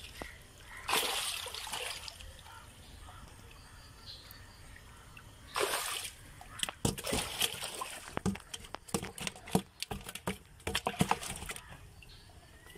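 Water splashing and sloshing as live red tilapia are lifted from a net into a basin of water, then a run of sharp wet slaps and splashes from the fish thrashing in the basin.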